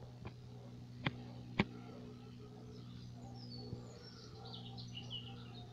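Small birds chirping in short high, gliding calls over a steady low hum, with a few sharp clicks; the two loudest come about a second in, half a second apart.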